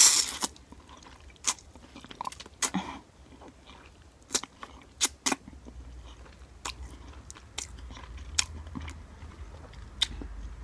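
A person slurping and chewing soft instant ramen noodles close to the microphone. A loud slurp comes right at the start, followed by many short, wet mouth clicks.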